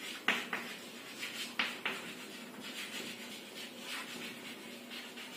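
Chalk writing on a blackboard: a series of short, faint scratchy strokes and light taps as words are written out.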